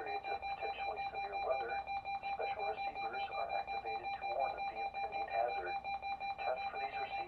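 Weather radio receiver playing a broadcast test message: a faint, garbled voice under several steady whining tones from interference.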